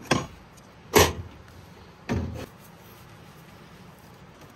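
Camp-kitchen gear being pulled out of the back of a 4x4: a small click, a sharp knock about a second in, then a short scraping thud as the slide-out box comes out.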